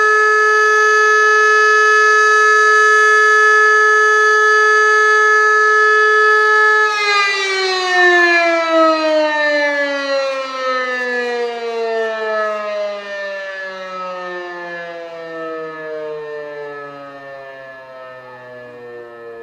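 E57 electromechanical motor siren with a 5 kW motor sounding a steady tone, the Austrian siren-test signal. About seven seconds in the power is cut and the pitch falls steadily as the rotor coasts down, fading as it slows.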